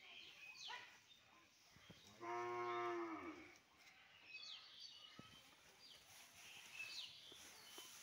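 A cow moos once, a single low call lasting about a second, a little over two seconds in, over faint, scattered chirps of small birds.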